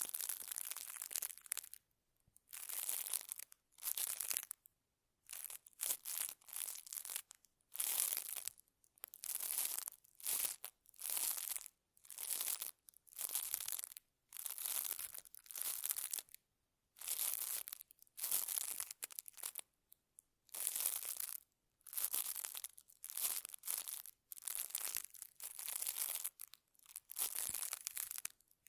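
Close-miked ASMR rustling and crinkling strokes, repeated about once a second, each lasting under a second with silent gaps between them.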